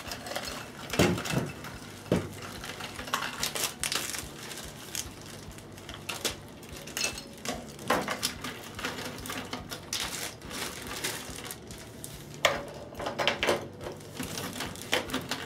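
Clear plastic zip-top bags crinkling and rustling as they are opened and handled, with scattered sharp crackles and clicks.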